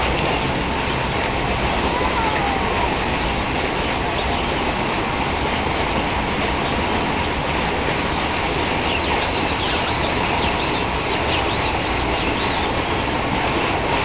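Water from a tall fountain jet falling back into a lake: a steady rushing splash. Birds chirp faintly about nine to eleven seconds in.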